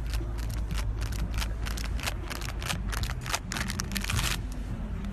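Footsteps of someone walking on grass, a quick irregular run of short crisp steps that stop a little before the end, over a steady low rumble.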